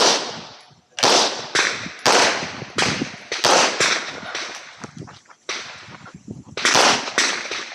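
A handgun firing a competition course of fire: about a dozen shots, some in quick doubles half a second apart, with short pauses between strings, each shot trailing off in echo.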